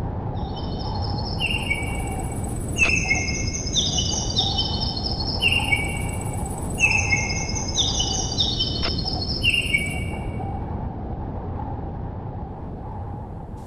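Birds calling: short, high chirps in phrases that repeat every few seconds over a steady rushing background noise.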